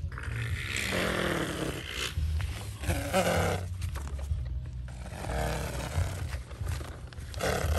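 A child's voice making loud, roaring vocal sounds in repeated bursts, over a low steady rumble.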